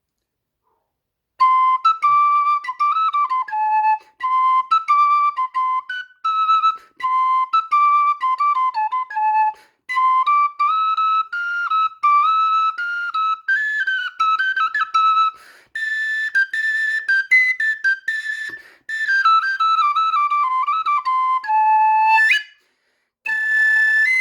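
Cedar bird flute in A minor playing a quick, ornamented melody in short phrases with brief pauses, starting about a second and a half in.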